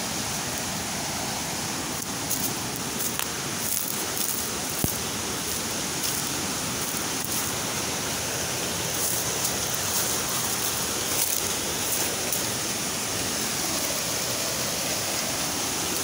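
Mountain stream rushing steadily over boulders, a constant hiss of white water, with a few light rustles and clicks of footsteps through leaf litter.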